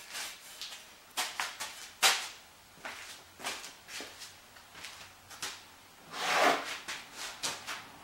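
Scattered knocks and clicks of objects being handled and set down, with a sharper knock about two seconds in and a longer rustling scrape a little after six seconds.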